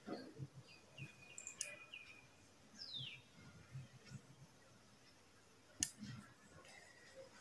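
Faint bird chirps, with one falling whistle about three seconds in, and a single sharp click near the end.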